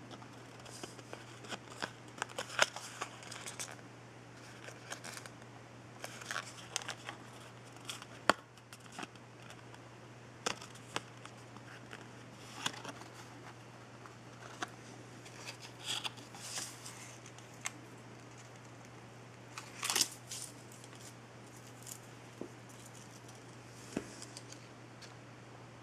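Close handling noise: a paper jewellery card rustling and crinkling between fingers, with scattered small clicks and taps, the sharpest about eight and twenty seconds in, over a steady low hum.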